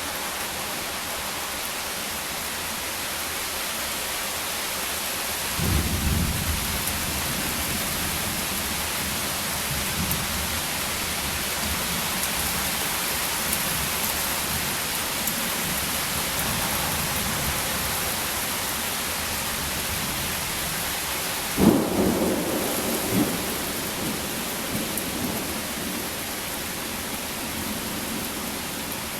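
Steady rain falling through a thunderstorm. Thunder rumbles low about six seconds in, then a sharper, louder clap comes about twenty-two seconds in and rolls on for a couple of seconds.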